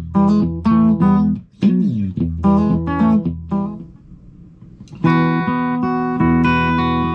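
Clean electric guitar, a Suhr Classic, played through a Mesa Boogie tube amp on a clean setting. Short, rhythmic strummed chords give way about four seconds in to a brief quiet spell, then a full chord rings out and sustains from about five seconds in.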